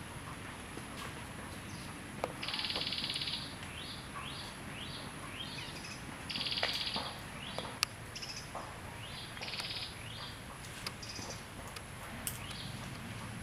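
A bird calling: two short buzzy trills about four seconds apart, each followed by a run of quick rising notes, over a steady outdoor hiss with scattered sharp clicks.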